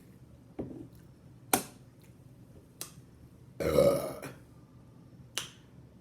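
A woman's loud burp, lasting under a second, about three and a half seconds in. A few short sharp clicks come before and after it.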